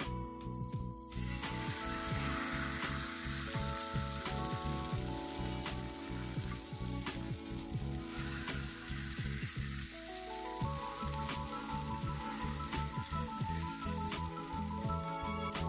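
Grated potato and egg batter sizzling in hot oil in a frying pan as a spatula spreads it, with scattered small pops. The sizzle starts about a second in. Background music plays underneath.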